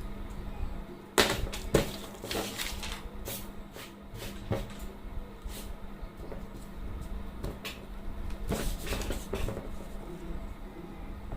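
Silicone pop-it fidget toy having its bubbles pressed, giving sharp, irregular pops, in quick clusters a little after the start and again near the end, over a steady low hum.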